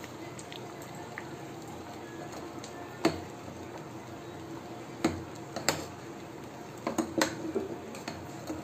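A metal ladle stirring liquid payasam in an aluminium pressure-cooker pot, with sharp knocks of the ladle against the pot's side. The first knock comes about three seconds in, and most come in quick clusters in the second half.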